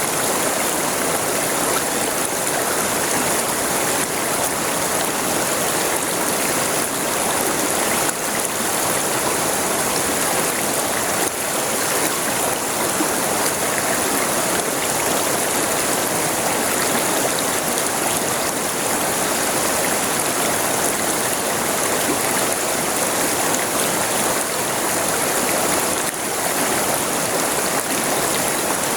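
River water flowing and rushing over its bed, a steady, unbroken wash of sound.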